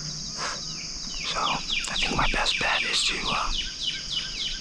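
A songbird calling a rapid run of short down-slurred chirps, about four a second, starting about a second in. Under it runs a steady high insect trill.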